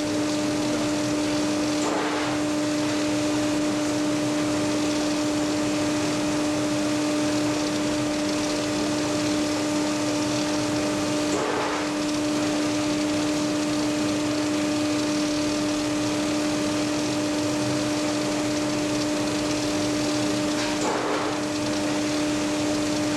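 High-frequency induction heating generator running steadily while it heats a metal cone to about 1000 °C for a glass-to-metal seal: a constant hum with a fainter overtone over an even hiss.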